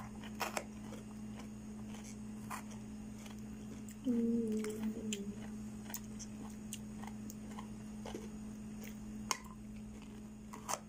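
A fork clicking against a ceramic plate several times as cucumber slices are picked up, over a steady low hum. About four seconds in, a brief low voice sound lasting about a second.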